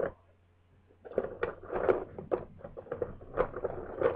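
Small plastic toy figures being handled and set down, with irregular light clicks and rustles that start about a second in.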